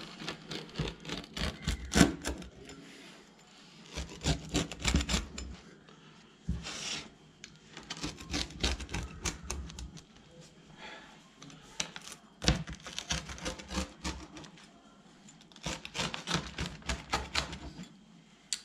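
Rolling pizza-cutter wheel slicing through a thin, crisp pizza crust down onto the peel. Rapid crackly clicks come in about five separate passes, each a second or two long.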